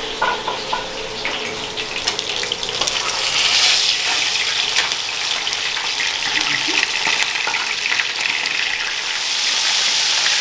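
Hot oil sizzling and crackling as food deep-fries in a pan: a steady hiss with a scatter of small crackles, swelling about three seconds in and again near the end.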